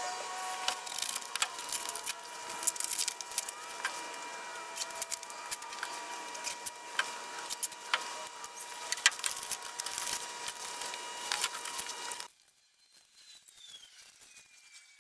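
Handling noise from foam pipe insulation being cut and fitted onto PVC pipe corners: scattered small clicks and rustling over a steady hiss. It stops abruptly about twelve seconds in.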